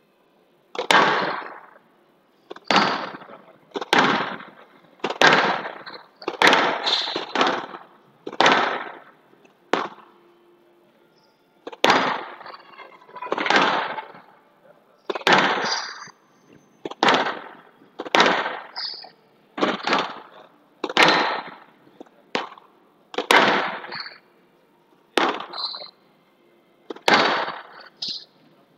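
Squash ball struck back and forth in a long rally: about one sharp crack a second as racket and ball hit the walls, each ringing briefly in the glass court.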